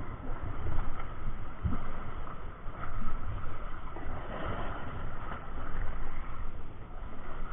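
Wind buffeting the microphone over choppy open sea on a boat: an uneven low rumble with a steady hiss of wind and water.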